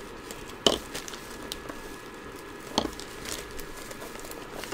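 Two sharp clicks, about two seconds apart, and faint light ticking as small items are handled on a tabletop while a gold testing kit is set up.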